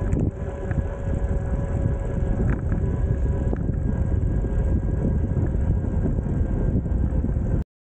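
Steady wind noise on the microphone and low rumble from a camera riding along a paved path, with a faint steady hum above it. The sound cuts off abruptly near the end.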